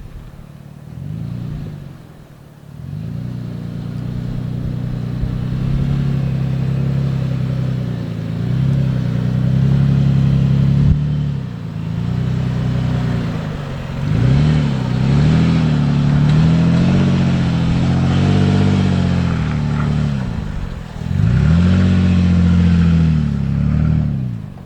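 5th-generation Toyota 4Runner's 4.0-litre V6 running through a Carven high-clearance dump exhaust, accelerating and easing off again and again on trail, its note rising and falling. The sound breaks off abruptly a few times between clips.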